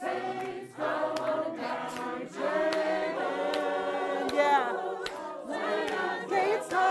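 Community chorus of mostly women's voices singing together unaccompanied, in harmony, holding long notes with brief breaks between phrases.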